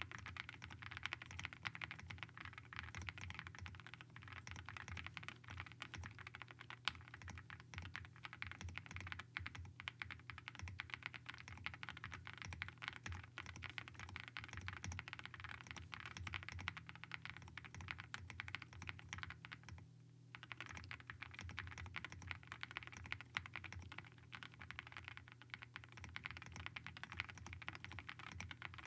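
Continuous typing on a Zoom65 2.0 mechanical keyboard with WS Morandi linear switches and NicePBT keycaps, a dense run of keystrokes with one brief pause about twenty seconds in.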